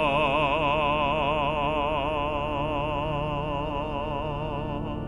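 Male pansori singer holding one long sung note with wide vibrato over a steady sustained accompaniment, gradually getting softer.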